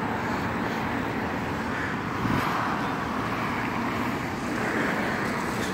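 Steady road traffic noise, an even rush of passing cars that swells slightly a couple of times.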